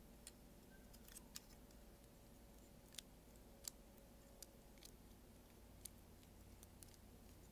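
Near silence with faint, irregular clicks of plastic model kit parts being handled and fitted together, over a low steady hum.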